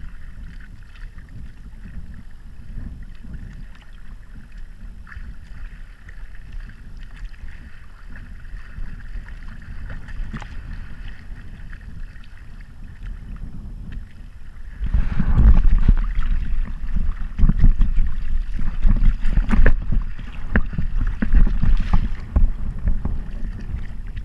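Wind buffeting the microphone over the rush and slap of choppy water against a Long Haul Mark 2 sailing kayak's hull and outrigger floats as it sails in a 15 mph wind. About fifteen seconds in, the wind gets much louder and comes in ragged gusts.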